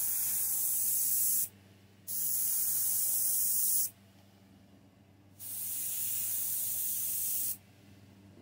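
Airbrush spraying acrylic paint in three hissing bursts of about two seconds each, the trigger pulled and released between them, over a steady low hum.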